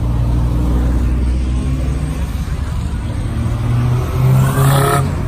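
Car engines passing at low speed: a lowered Volkswagen Jetta goes by with a steady low drone, then a Honda Civic sedan follows. Near the end an engine revs up, rising in pitch, and this is the loudest part.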